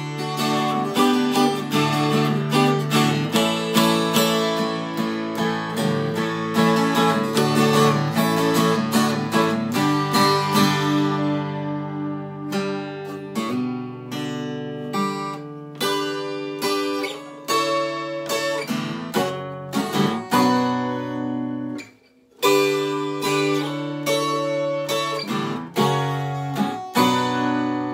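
Twelve-string acoustic guitar played solo in an instrumental break, picked and strummed chords ringing, with a brief stop about three-quarters of the way through before the playing resumes.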